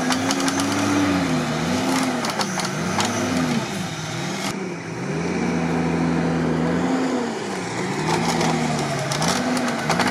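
Off-road 4x4 engine revving up and down again and again under load while pulling a stuck UAZ out of deep mud on a tow rope. The revs hold steady for a couple of seconds about midway.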